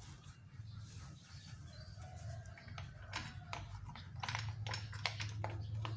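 Light clicks and taps of a bare plastic bicycle saddle's rails being handled and fitted into the seatpost clamp. There are several short clicks, mostly in the second half, over a faint low hum.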